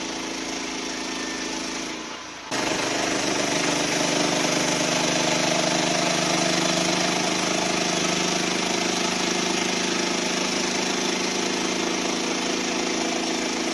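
Portable sawmill running with its engine under steady load. The sound breaks off briefly about two seconds in and comes back louder.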